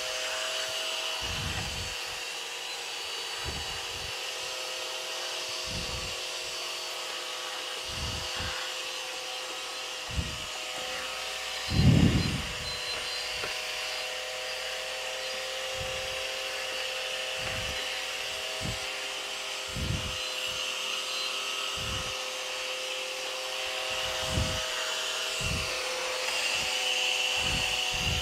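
Cheap no-brand canister vacuum cleaner running steadily with a motor whine and hiss of suction. Low thuds every second or two as the floor nozzle is pushed over the foam mats, with a louder bump about twelve seconds in.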